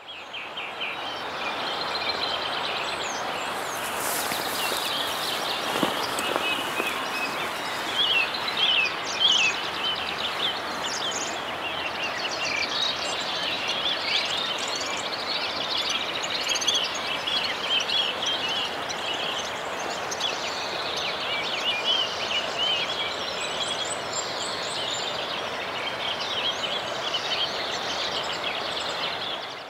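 Many small birds singing and calling, with chirps and trills throughout, over a steady rush of stream water.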